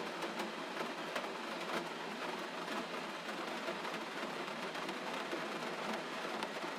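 Steady gentle rain: an even hiss with faint scattered drop ticks.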